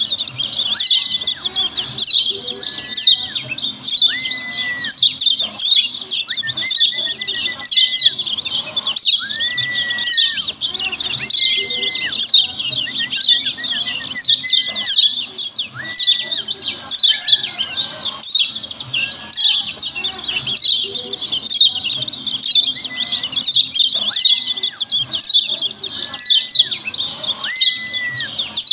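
Lemon-bellied white-eye (kecial kuning) giving its harsh, rapid 'ciak ciak' calls: a dense run of high chirps with louder ones about once a second, and short level whistled notes now and then below them. It is a bird-keepers' lure call, played to provoke other white-eyes into answering.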